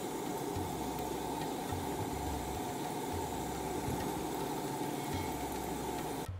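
Small besan pakoras deep-frying in hot oil in a kadhai: a steady sizzling and bubbling hiss that stops abruptly near the end.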